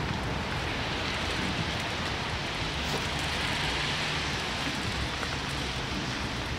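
Steady hiss of rain falling, with a faint low hum underneath.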